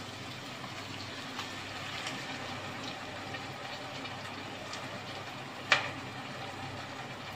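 Canned sardines in tomato sauce sliding and plopping out of the tin into a pot of sautéing onions, over a steady low sizzle. A single sharp knock about two-thirds of the way through stands out as the loudest sound.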